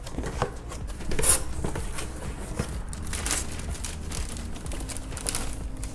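Cardboard box flaps being opened, then a clear plastic bag liner inside the box being rustled and crinkled by hands, in irregular bursts that are loudest about a second in.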